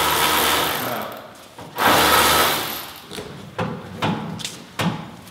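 A loud hiss that fades out within the first second, a second shorter hiss about two seconds in, then scattered light knocks and clicks from hands working on the car body.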